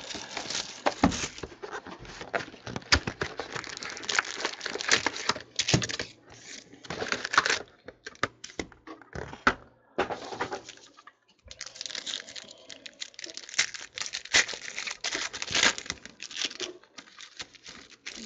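A 2014 Panini Prizm trading-card box and its foil pack wrappers being torn open and crinkled by hand. The crackling comes in irregular spells with short pauses.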